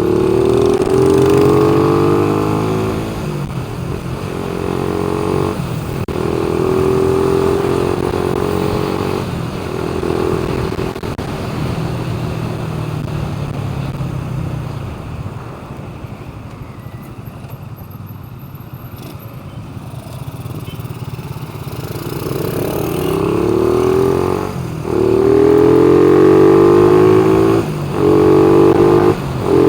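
A motor vehicle's engine running and revving, its pitch sweeping upward several times. It is loudest near the start and again over the last few seconds, and quieter in the middle.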